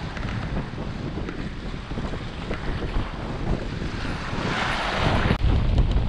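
Strong sea wind buffeting the microphone over waves washing against the concrete tetrapods of a breakwater. A louder rushing surge comes about four seconds in, and the wind buffets harder near the end.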